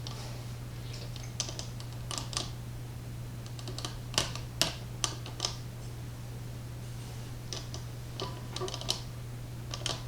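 Irregular light clicks and taps of small lock parts being handled on a table, a dozen or so sharp ticks in uneven clusters.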